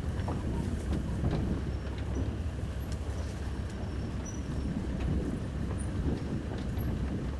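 A vehicle driving over rough ground: a steady low rumble with scattered knocks and rattles, which cuts off abruptly near the end.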